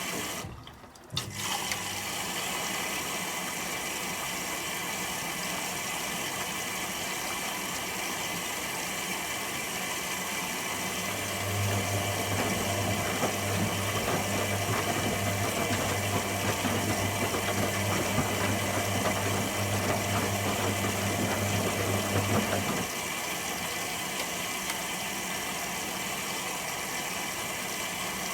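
Candy Aquamatic 100F washing machine in its first rinse, running with water noise. A low hum comes on about a third of the way in, runs for roughly eleven seconds and then stops.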